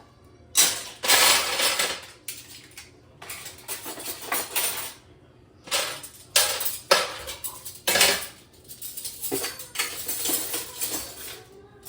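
Dishes and cutlery clattering and clinking in irregular bursts as they are set into the racks of a dishwasher.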